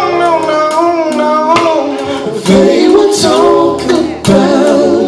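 Gospel quartet singing live in church, high lead voice with group harmony, backed by guitar and drums.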